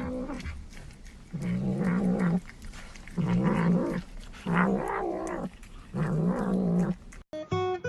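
A cat yowling: four long, drawn-out calls of about a second each, wavering in pitch, with short gaps between them.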